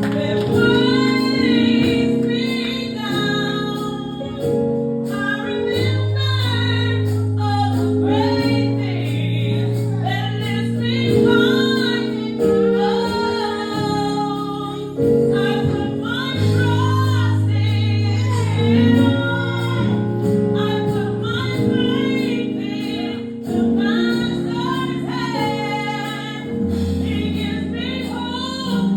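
Live gospel music: female voices singing the melody over sustained keyboard and bass chords.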